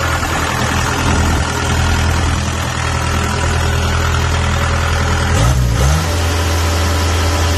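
Diesel engine of a 2017 Kubota DC70 combine harvester running steadily, heard up close at the open engine bay. Its pitch wavers briefly about five and a half seconds in.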